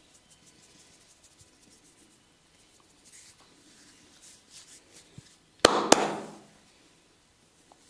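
Body massage sounds: faint rubbing and light tapping, then two sharp cracks about a third of a second apart a little past halfway through.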